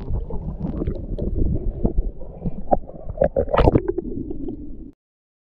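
Muffled, rumbling water noise picked up by a camera underwater, with scattered clicks and pops, possibly of bubbles or the camera housing; it stops abruptly near the end.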